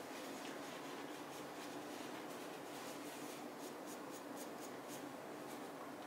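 A cloth rag rubbing and scrubbing a freshly soldered copper pipe cap, wiping off the leftover flux: faint, quick, irregular scrubbing strokes.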